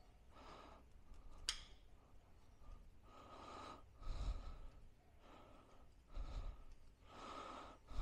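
A man breathing heavily as he strains at a stubborn part on a motorcycle wheel, about six slow, faint breaths. There is one sharp click about one and a half seconds in.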